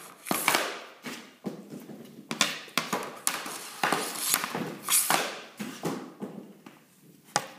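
Snap shots with an Easton Synergy EQ50 hockey stick off a shooting board: a series of sharp cracks and thuds as the blade strikes the board and fires pucks, each with a short ring in an enclosed room.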